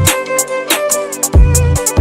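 Background music: a bowed-string melody over a beat with deep bass and sharp hits, the bass dropping out for the first second or so before coming back in.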